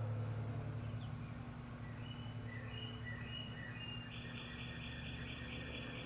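Outdoor ambience: birds calling with whistled notes, one giving a rapid trill of about four notes a second in the second half, and high thin chirps, over a steady low hum.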